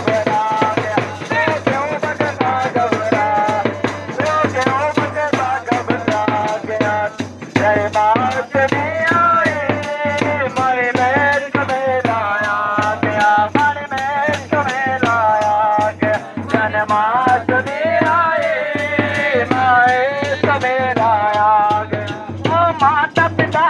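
Music: a melody that glides and wavers in pitch over a fast, steady rhythm of rattle and drum.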